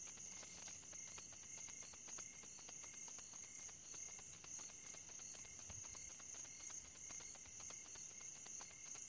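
Faint chorus of night insects: a steady high-pitched drone with a lower, evenly pulsing trill beneath it.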